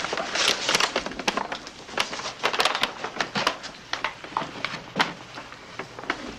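A bag rustling as it is handed over and handled, with irregular rustles and a few light clicks and knocks of people moving about.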